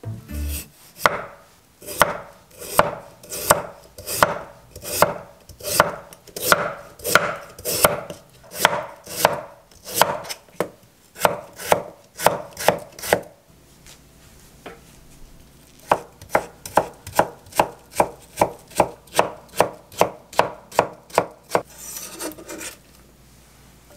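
Chef's knife slicing a peeled raw potato on an end-grain wooden cutting board. It strikes the board evenly about one and a half times a second, pauses briefly about halfway through, then goes faster as the slices are cut into thin strips.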